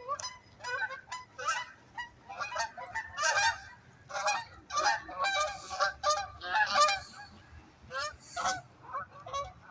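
A flock of waterfowl calling: many short honking calls overlapping, several a second.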